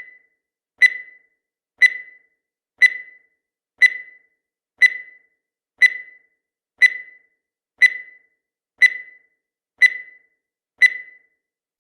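Countdown timer sound effect: a short high beep repeating once a second, each one fading quickly.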